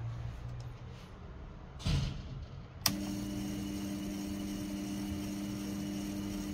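Proxxon mini lathe spinning a home-made slitting saw arbor for a runout test, with a steady motor whine. Before that, a faint low hum and a short rustle; a sharp click comes about three seconds in, after which the whine holds steady.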